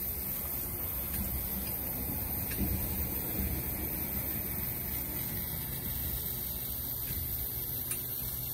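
Fog machine running, a steady hiss of fog with a low mechanical hum underneath.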